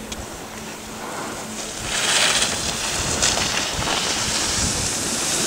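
Wind buffeting the microphone: a rushing noise that gets louder and hissier about two seconds in.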